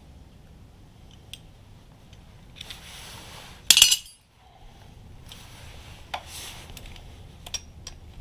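Metal hand tools clinking and tapping against metal parts, with scattered light clicks and one short, loud metallic rattle a little before four seconds in.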